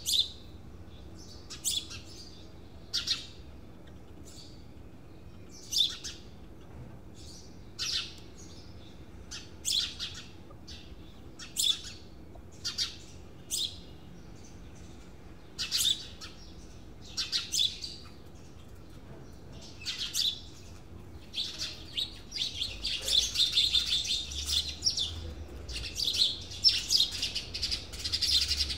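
Birds chirping: short high calls every second or two, becoming busier and almost continuous in the last several seconds.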